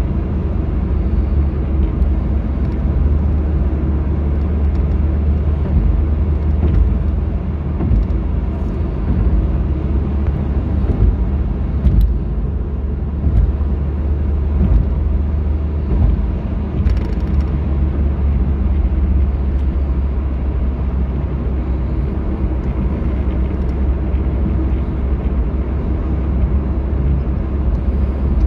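Steady low rumble of a moving car's engine and tyres, heard from inside the cabin at road speed.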